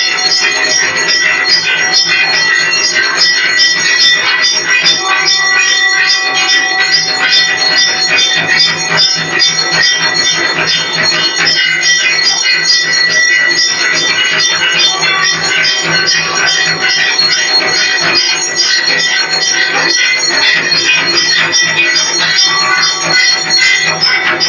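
Rapid, continuous ringing of temple bells and metal percussion accompanying a Hindu arati, dense strokes over a steady, bright metallic ring.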